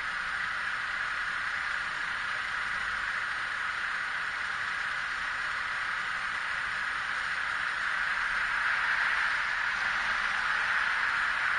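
Diesel dump truck idling, a steady even noise with no clear pitch. It grows a little louder about eight seconds in as a car drives past.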